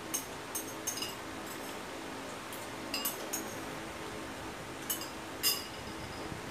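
Spoon clinking against a ceramic bowl while eating: about eight light, irregular clinks with short ringing, the loudest near the end, over a faint steady hum.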